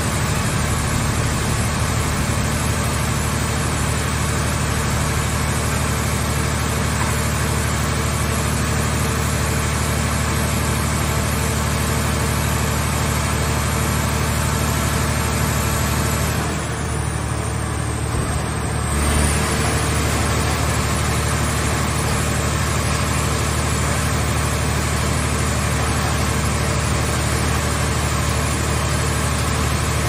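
Hydraulic car-shell baler's power unit running steadily, a low hum with a broad hiss over it. Around the middle the hiss drops away for about two seconds, then comes back with a short low thump.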